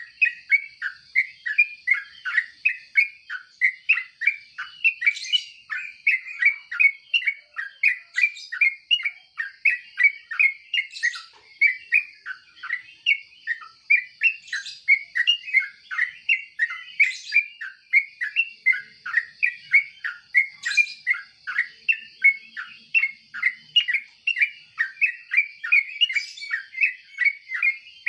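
Yellow-vented bulbul chirping continuously: a fast, unbroken run of short notes, about three or four a second, with a sharper higher note every few seconds and a steady high-pitched tone underneath.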